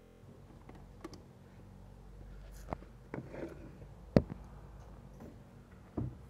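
Handling noises from slime and its plastic tub: scattered sharp clicks and knocks, the loudest about four seconds in, with a short rustling patch just after three seconds.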